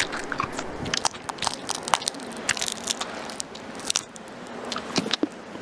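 Arctic wolf chewing on a scrap of hide from a kill: irregular wet crunches and crackles of biting and gnawing.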